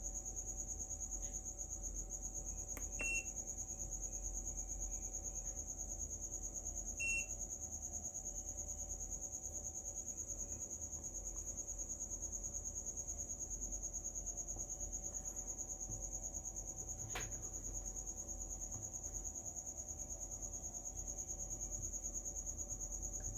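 Steady high-pitched trill of crickets, with two short electronic beeps from the FNIRSI DWS-200 soldering station about three and seven seconds in, as it is switched on and heats up.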